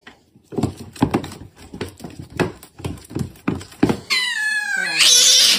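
Two cats wrestling on a wooden floor: a run of soft thumps and scuffles, then one cat lets out a yowl that falls in pitch about four seconds in, followed by a loud hiss near the end.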